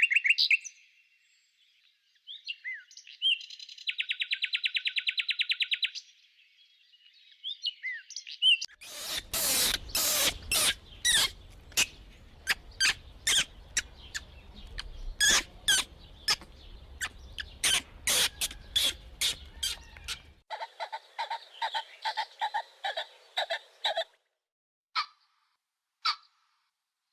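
Birds chirping and calling: short chirps, then a fast, even trill, then a long run of loud, sharp calls, and a few single short calls near the end.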